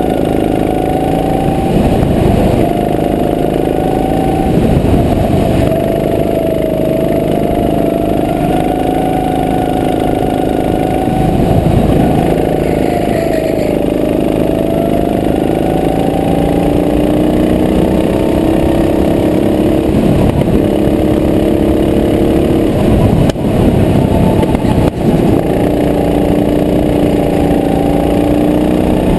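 Go-kart engine running hard under the driver, its pitch dipping and rising as the throttle is lifted and reapplied through the corners.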